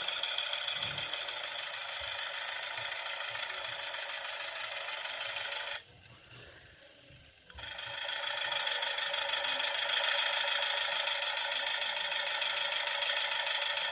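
Recorded Citroën Type H van engine sound played back through a small electronic sound module's speaker: a steady, rattly idle with no bass. It drops out for about two seconds midway, then resumes.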